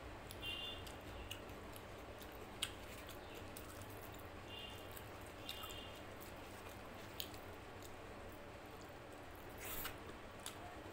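Close-miked eating sounds: soft wet chewing and lip smacks while eating rice and mutton curry by hand, with scattered sharp clicks and a louder smack near the end as a handful goes to the mouth.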